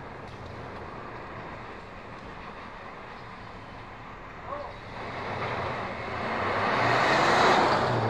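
Street traffic with a steady low hum. A vehicle passes close by, swelling from about five seconds in to its loudest near the end.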